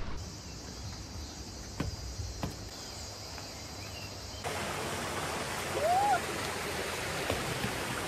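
Steady insect hum with a couple of footsteps on stone steps, then, about four and a half seconds in, the steady rush of the Pahanthudawa stream and falls over rock. A brief rising-and-falling call cuts through the water about six seconds in.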